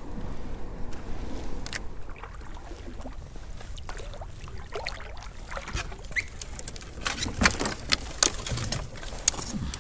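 Fishing gear being handled in a kayak: a run of small clicks, taps and rattles, sparse at first and thickest in the second half, over a steady low rumble.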